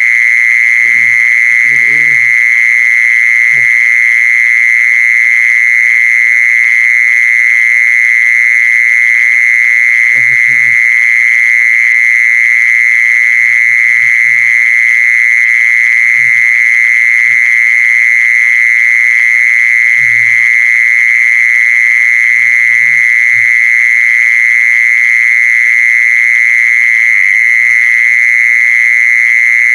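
The 'jee-son' insect (แมงจีซอน) singing: a loud, steady, high buzzing call that holds one pitch without a break. Short, faint low calls come and go behind it every few seconds.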